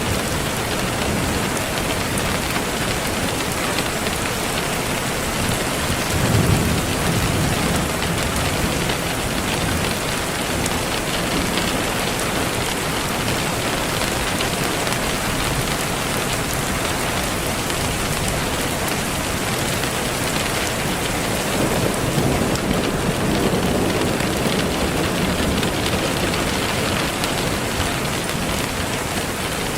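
Steady rain hiss, even and unbroken, with low rumbles of distant thunder swelling about six seconds in and again after about twenty seconds.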